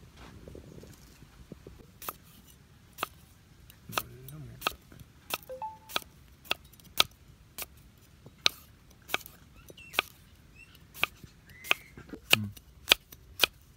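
A large knife slicing a cucumber into rounds, each cut landing on a wooden chopping block with a sharp knock. The knocks start about two seconds in and go on steadily, roughly two a second.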